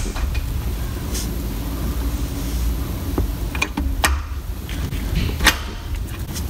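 A few sharp clicks and clunks from a C5 Corvette Z06's six-speed manual shifter as the lever is rocked back and forth to work grease into its dry mechanism, the loudest click about five seconds in. A steady low rumble runs underneath.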